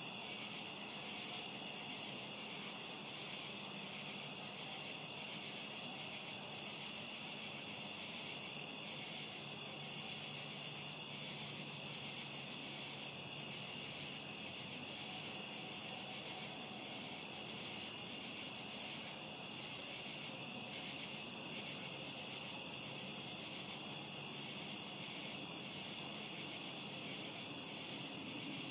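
Crickets chirping steadily, several high pulsing trills overlapping in a continuous chorus.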